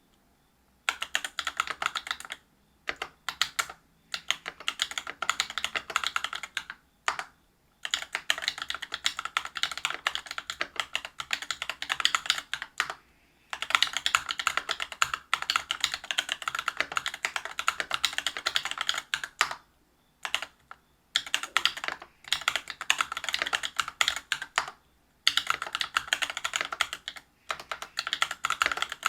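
Typing on a Whale 75 mechanical keyboard with stock, unlubed Cobalt POM linear switches (63.5 g) in a brass plate and PBT keycaps: rapid runs of key clacks. The typing starts about a second in and stops briefly several times.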